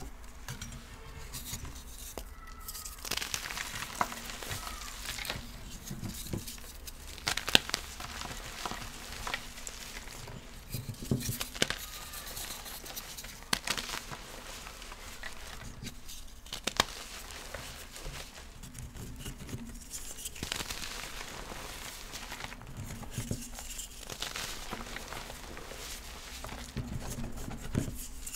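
Reformed gym chalk blocks being crushed and crumbled by hand: crunchy crackling and soft powdery crumbling that comes in uneven spells, with a few sharp cracks.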